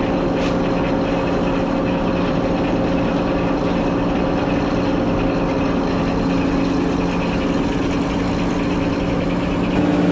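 An engine running steadily at a constant speed, with a slight shift in its tone near the end.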